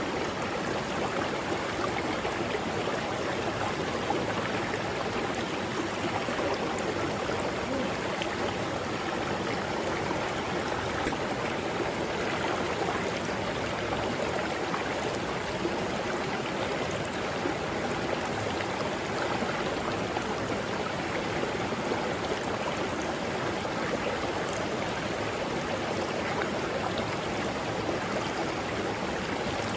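Mountain river flowing over rocks: a steady, even rush of water with no pauses.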